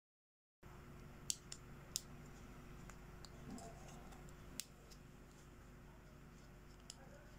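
Small hard-plastic toy accessories clicking and tapping as fingers and nails handle them: a few sharp, separate clicks, the loudest about a second in and again at two seconds, another past the middle, over faint room noise.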